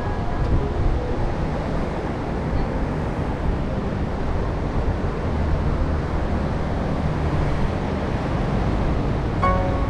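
Steady low rushing noise of wind, surf and road traffic along a coast road, without a single clear event. The tail of a music track fades just at the start, and music comes back in near the end.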